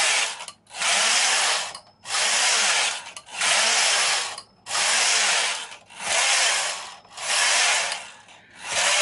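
Carriage of a Silver Reed SK160 mid-gauge knitting machine slid back and forth along the metal needle bed, with no yarn knitting. It makes a loud sweeping noise, about seven passes of roughly a second each, with a short gap at each reversal. The bed and the carriage underside are freshly oiled, and the passes work the oil in until the carriage runs very smoothly.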